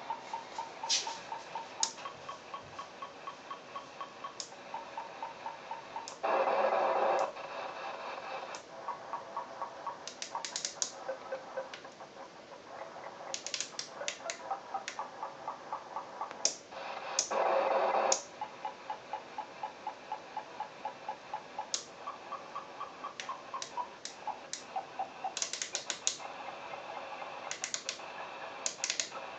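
Interference (QRM) on the 27 MHz CB band heard through a CB radio's speaker: a steady train of short clicks and beeps, about three to four a second, broken twice by a louder buzz lasting about a second. The uploader suspects it is a harmonic of the signalling beacons at a nearby railway station.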